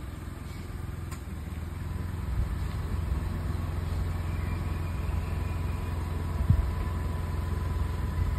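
Maruti Suzuki Wagon R's engine idling steadily as the car creeps backwards at walking pace, growing a little louder about two seconds in. A single short thump about six and a half seconds in.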